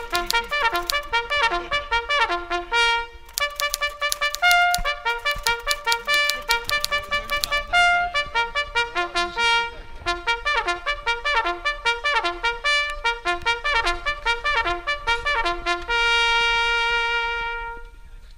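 Background music: a trumpet playing a fast run of short notes with a few brief pauses, ending on a long held note that fades out near the end.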